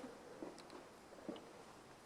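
Near silence with a few faint, short clicks and knocks.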